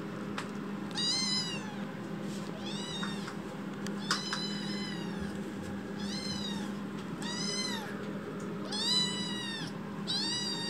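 Young kitten meowing loudly and over and over: seven high calls about a second and a half apart, each rising and then falling in pitch. It is the hard crying of a kitten just awake and pacing, which its keeper answers as impatience for food that is almost ready.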